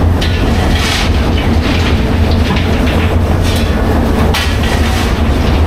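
The vintage coal-fired steamship TSS Earnslaw running under way: a loud, steady, deep mechanical rumble with a pulsing beat. Short bursts of hissing noise rise above it now and then.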